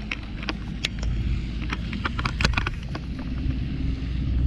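Wind rumbling on the microphone, with scattered sharp clicks and ticks from a rod and baitcasting reel being handled.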